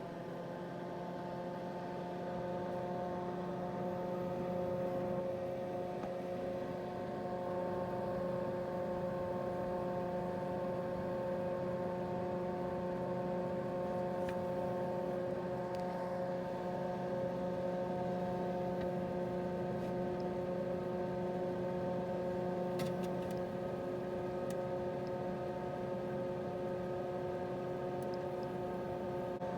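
Desktop PC running after being switched on, its fans at a steady whir with a low hum. The fan pitch levels off at the start and the sound grows slightly louder over the first few seconds. A few faint ticks come about two-thirds of the way through.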